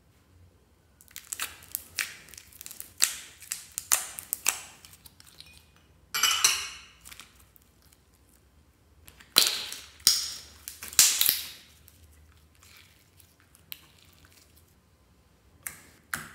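Clear slime being poured out, stretched and pressed by hand: sticky crackling and popping in clusters, with quiet pauses between them.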